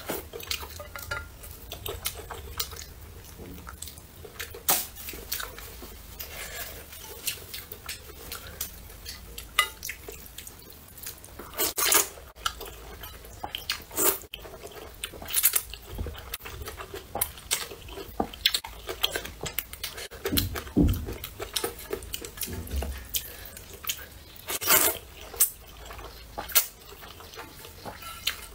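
Rice noodles slurped and chewed close to the microphone, in many short wet bursts with a few longer slurps, and occasional clinks of chopsticks against the metal bowl.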